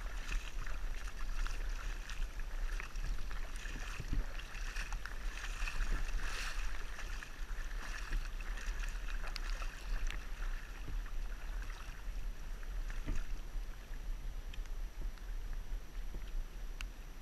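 Shallow creek water gurgling and splashing right at the microphone as it is held at the surface of a rippling riffle. Small ticks and splashes are scattered through it, over a steady low rumble.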